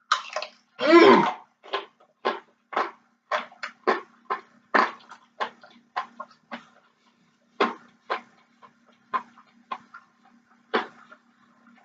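Chewing crispy fried chicken flautas with corn tortillas: a string of short, irregular crunching and mouth sounds, one to three a second.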